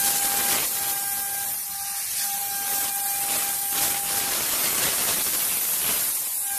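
A steady hiss over a faint, steady machine whine; the whine drops out about four seconds in.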